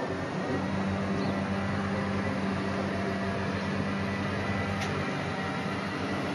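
A steady mechanical hum with a constant low tone.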